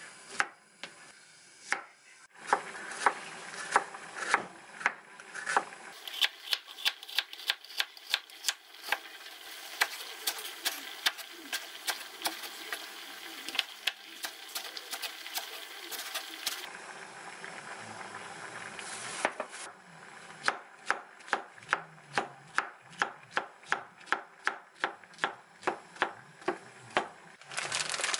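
Kitchen knife cutting on a wooden cutting board, slicing cucumber and chopping aged kimchi. Sharp strokes, a few scattered ones at first, then quick runs of about two to three a second.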